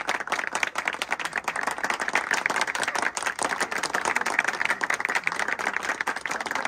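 A group of people clapping in steady applause.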